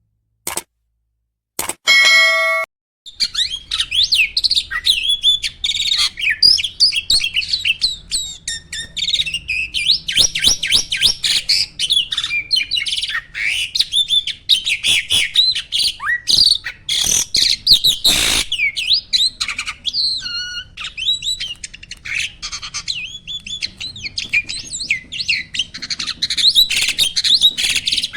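Starling singing a fast, continuous stream of chirps, whistles and harsh squawky notes, starting about three seconds in after a brief pitched tone.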